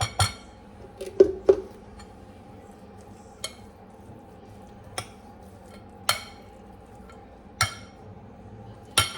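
A spoon clinking against a bowl while chicken salad is stirred and mixed. There are sharp, irregular clinks: a quick few about a second in, then single ones every one to two seconds.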